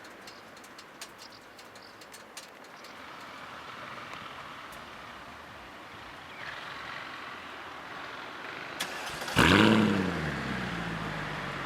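Faint background with a few small clicks, then about nine seconds in a Mercedes-Benz C63 AMG's 6.2-litre V8 starts. It flares up loudly with a rising then falling pitch and settles to a steady idle.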